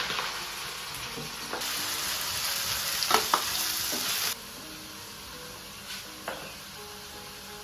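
Food sizzling in hot oil in a cooking pan, with a couple of sharp knocks of a utensil about three seconds in. The sizzle drops suddenly to a quieter hiss a little past four seconds.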